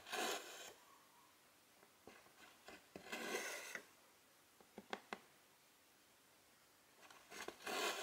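Silk embroidery thread being pulled through cross-stitch fabric: a short rasping pull at the start, another around three seconds in, and a third near the end, with a few light clicks around five seconds in.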